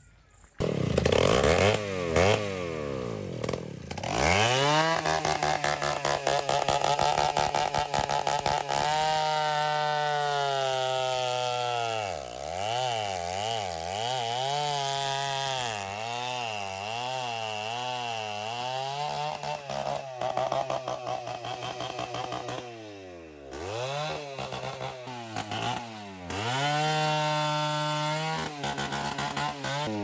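Stihl two-stroke chainsaw cutting through a tree trunk. It revs up sharply about half a second in and then runs at high revs, its pitch dipping and wavering as the chain bites into the wood, with a couple of brief drops in revs late on before it runs high again.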